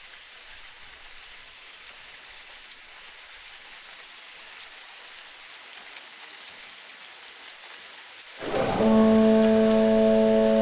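A soft, steady hiss, then, about eight seconds in, a loud sustained horn-like tone of several held pitches starts abruptly and holds without change.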